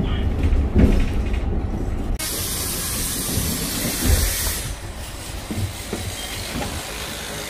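City bus's low engine rumble, then about two seconds in a sudden loud pneumatic hiss of compressed air as the bus's rear door opens for passengers getting off, lasting about two and a half seconds. After it, quieter street sound with a few steps.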